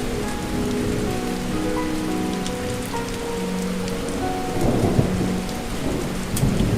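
Steady heavy rain falling, with thunder rumbling twice: once about two-thirds of the way through and again near the end. Soft held notes of background music sound underneath.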